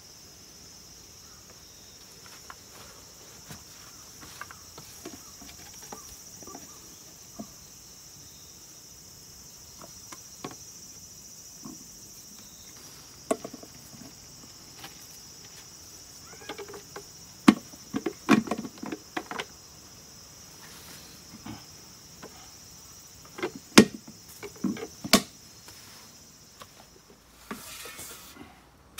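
Insects chirring in a steady high drone, with scattered sharp clicks and knocks of plastic valve box lids being handled and pressed onto PVC pipe risers; the knocks are loudest and most frequent through the middle. Near the end the chirring stops and a shovel scrapes and tosses soil.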